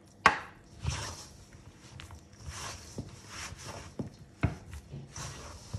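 Hands mixing water into a buttery flour dough in a bowl: a sharp knock about a quarter second in, then repeated soft rubbing and squishing strokes.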